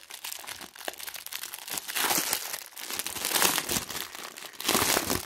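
Clear plastic bag crinkling as hands pull open its sealed end and handle the drill packets inside. Irregular crackling that swells louder a few times, loudest near the end.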